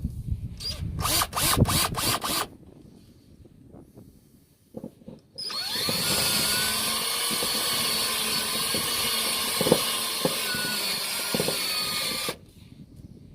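Power drill with a step bit boring a 7/8-inch hole through the car's sheet-metal floor: the motor spins up at about five seconds in and runs steadily for about seven seconds, then stops. Near the start, a quick series of sharp knocks.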